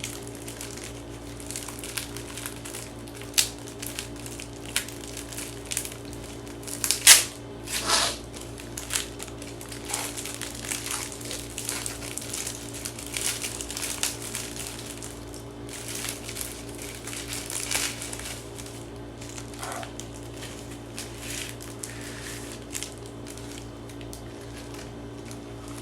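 Plastic wrapping crinkling and crackling in irregular bursts as a packaged convenience-store rice ball is unwrapped and handled.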